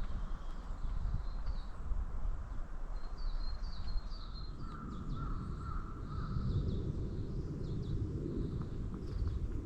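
Small birds chirping in short, repeated high notes, with a crow cawing about five seconds in, over a steady low rumble.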